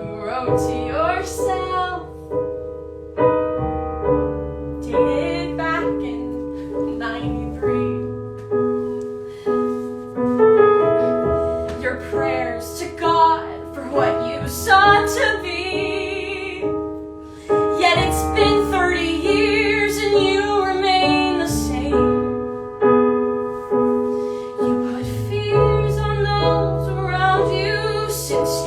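Piano accompaniment with a woman singing over it in a classical, art-song style; her held notes waver in pitch.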